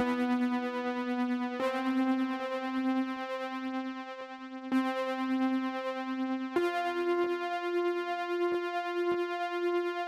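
Keys part of a live multitrack recording playing back through the Neold V76U73 tube preamp and compressor plugin: sustained synth-keyboard chords that change three times, with faint regular ticks underneath.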